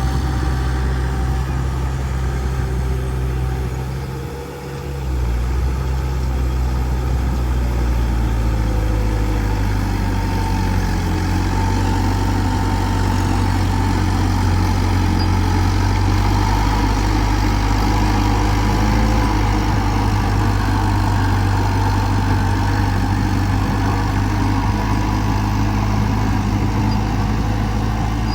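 Heavy diesel engine of earthmoving machinery running steadily, dropping briefly about four seconds in and then picking up again.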